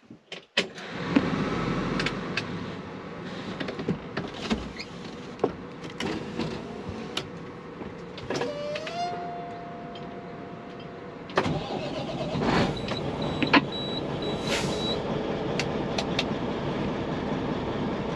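Clicks and knocks in a semi-truck, a steady whine for about three seconds, then the truck's Caterpillar 3406 diesel engine running steadily, with a brief string of high beeps.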